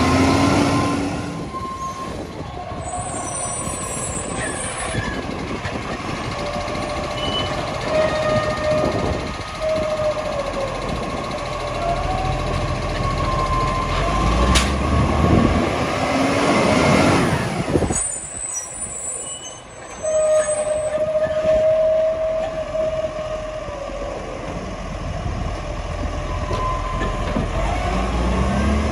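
Side-loading recycling garbage truck with an Iveco cab working at the kerb: its diesel engine runs and revs while a steady whining tone comes and goes, with a sharp click about halfway through.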